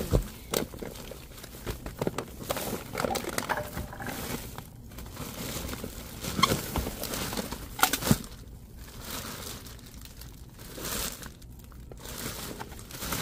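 Plastic trash bags and plastic-wrapped meat packages crinkling and rustling as hands rummage through them, with a few sharp knocks along the way.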